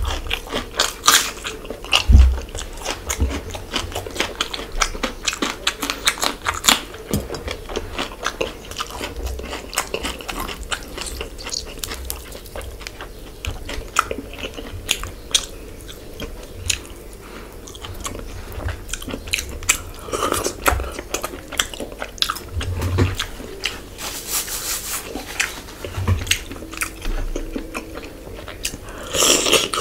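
A person eating fish curry with their hands: chewing and biting, with many sharp, irregular clicking mouth sounds.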